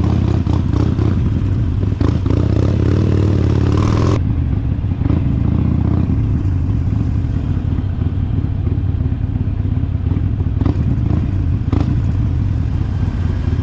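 Harley-Davidson Sportster XL1200X Forty-Eight's V-twin engine running steadily under way, heard from the bike. It revs up for a couple of seconds, and about four seconds in the sound changes abruptly.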